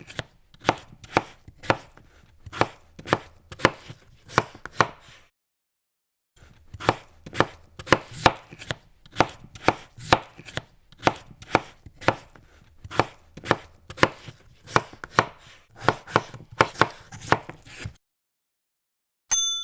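Knife chopping food on a wooden cutting board: sharp, even strokes about two a second, in two runs separated by a pause of about a second. Right at the end a bright metallic ding starts.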